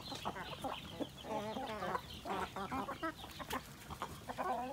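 A flock of Philippine native chickens clucking while they feed on scattered grain: many short calls from several birds, overlapping and irregular.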